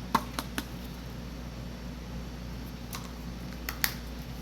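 Several light clicks and taps from a paper cup and container being handled while sugar is added to the pickle brine, over a steady low hum.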